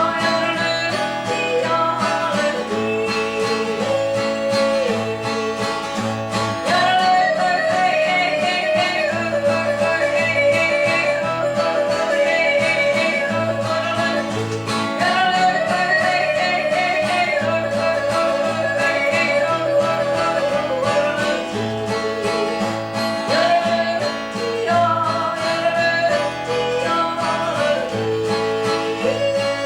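Live traditional country music: guitars and other plucked strings playing a steady accompaniment under a sung melody of long, held phrases.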